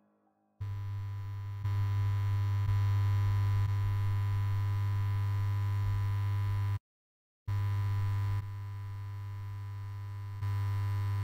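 Steady low electronic hum with a faint buzz of even overtones. It starts suddenly about half a second in, steps up and down in loudness a few times, and cuts out for under a second past the middle before coming back.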